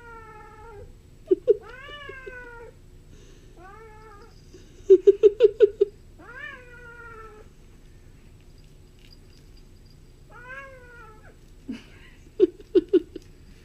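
Bengal kitten meowing repeatedly while playing, about five drawn-out meows that each rise and then fall in pitch. Between them come clusters of short, loud low pulses in quick succession, the loudest sounds: two about a second in, six around five seconds in, and four or five near the end.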